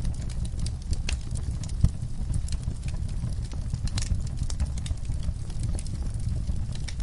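Wood fire crackling and popping: irregular sharp pops over a low, steady rumble of the burning fire, with one louder pop about two seconds in.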